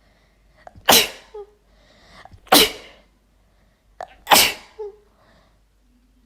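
A woman sneezing three times in quick succession, each sneeze about a second and a half to two seconds after the last and each with a short catch of breath just before it. It is a sneezing fit brought on by chhinkni, a sneeze-inducing herbal powder.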